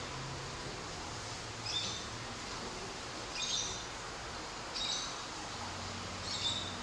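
A bird chirping: a short high chirp four times, about every one and a half seconds, over a steady background hiss.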